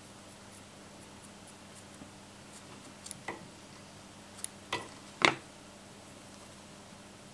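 A few light clicks and taps from handling at a fly-tying vise, scattered over about two seconds, the last and loudest a little past the middle, over a faint steady hum.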